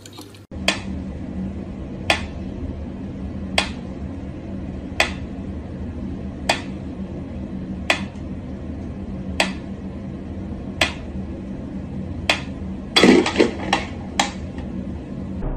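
Mechanical pendulum metronome ticking slowly, one sharp tick about every second and a half, over a steady low hum. Near the end a quick clatter of louder knocks breaks in.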